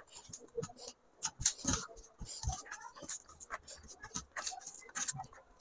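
Eating sounds of rice and egg curry eaten by hand: many small, irregular wet clicks and smacks of chewing and of fingers squishing rice in the curry against a steel thali.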